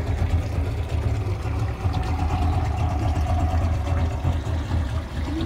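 Mercury 60 hp outboard motor on a small runabout running at low speed as the boat pulls away, a steady low drone.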